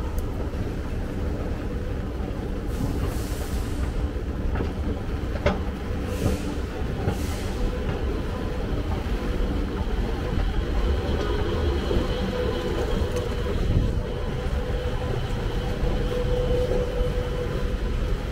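Escalator running as it carries riders up, a steady mechanical rumble with a faint hum that grows louder in the last third, as the top landing with the drive machinery comes near.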